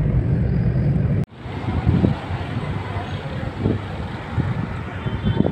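Steady low road rumble from inside a moving car. About a second in it cuts off abruptly and gives way to outdoor street traffic noise.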